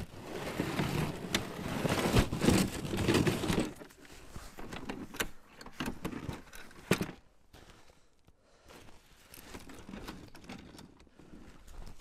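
Clattering and scraping of a motorized towing snowmobile being shifted by hand, loudest over the first four seconds. Quieter scattered knocks follow, with one sharp knock about seven seconds in.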